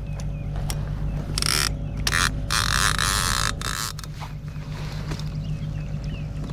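Fishing reel drag buzzing out line in short bursts, the longest lasting about a second near the middle, as a hooked striped bass snagged in submerged trees pulls. A steady low hum runs underneath.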